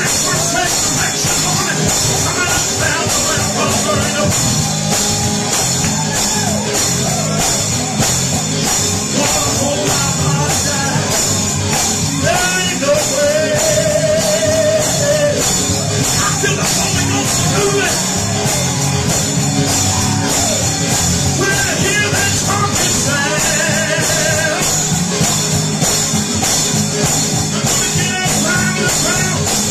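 Live gospel music from a church service: a band plays a fast, driving song with a steady beat, with voices singing over it and a few held notes.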